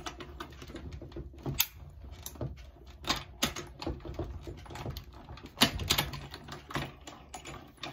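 Stampin' Cut & Emboss die-cutting machine being hand-cranked, feeding a die and its cutting plates through the rollers: an irregular run of clicks and knocks, with one louder knock about five and a half seconds in.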